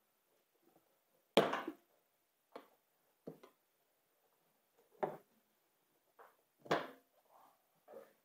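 A screwdriver prying a snowblower tire's rubber bead over the lip of a steel wheel rim: about five short, separate clunks and scrapes, the loudest about a second and a half in.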